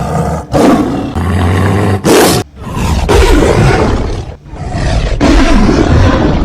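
Lion roaring: about five loud, rough roars and growls one after another, with short breaks between them.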